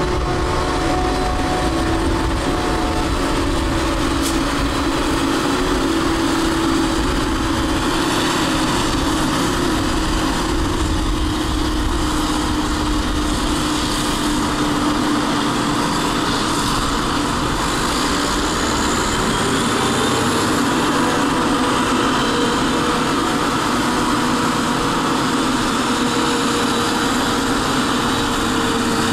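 Claas Jaguar forage harvesters chopping maize at working speed: a steady, loud drone of engine and cutterhead with tones that drift slowly in pitch, mixed with tractor engines running alongside.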